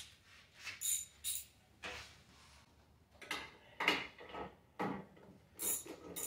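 Metal clinks of a spark plug socket, extension and ratchet being handled, then a ratchet wrench working a lawn mower's spark plug loose in a few short, uneven strokes.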